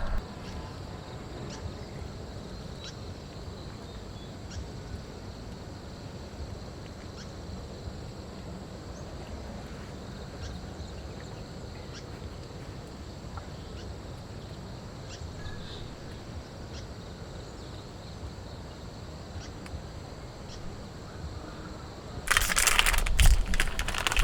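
Steady outdoor background ambience with faint scattered ticks. Near the end a loud rustling, crunching burst lasts about two seconds.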